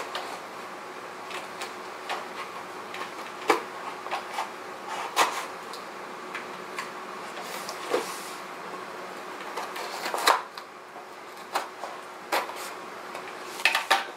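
Scissors cutting through the packing tape on a cardboard shipping box: irregular scrapes, snips and taps of the blade against tape and cardboard. A cluster of louder scrapes comes near the end.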